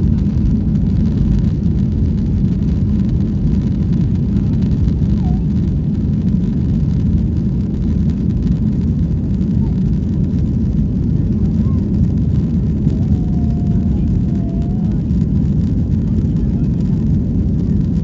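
Steady low rumble inside the cabin of a Boeing 737-800 taxiing, its CFM56-7B engines at low power, holding an even level throughout.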